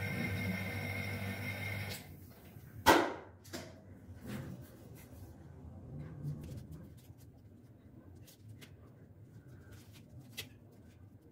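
A steady mechanical hum stops suddenly about two seconds in. A sharp knock follows, the loudest sound, then a few softer knocks and light handling ticks as a cricket bat's handle is worked in and out of a steel tube on a stand.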